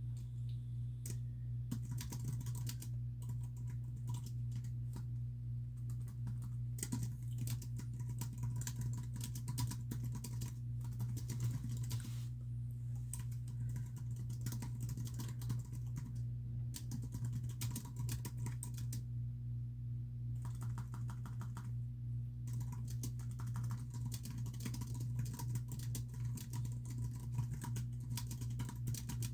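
Steady keyboard typing, fast runs of key clicks with short pauses a few times, over a constant low hum.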